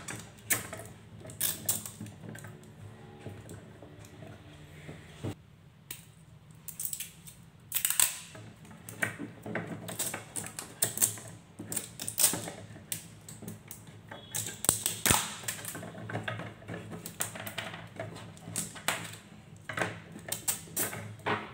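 Cylindrical lithium-ion cells clicking and clacking against each other and a wooden holder as they are set down and arranged by hand, in irregular knocks throughout.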